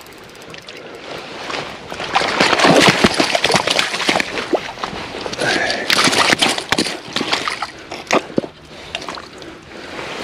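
Water splashing and sloshing in irregular bursts, with sharp splatters, loudest from about two to seven seconds in, as a hooked zander thrashes while it is landed at the water's edge.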